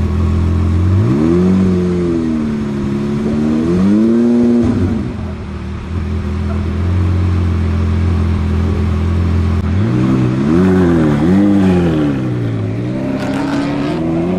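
Twin-turbocharged V12 of a GAD Motors Lamborghini Aventador idling, revved twice about one and four seconds in and settling back to idle each time. From about ten seconds in it gives a series of quick revs as the car pulls away.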